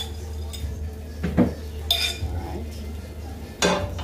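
A metal fork and bowl clinking and knocking against a frying pan as beaten egg is poured in and stirred: a few separate clinks, the loudest near the end, over a steady low hum.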